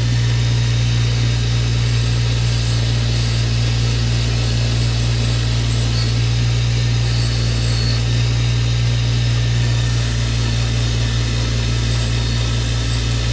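Bench grinder's electric motor running at steady speed, a loud even hum with no grinding contact.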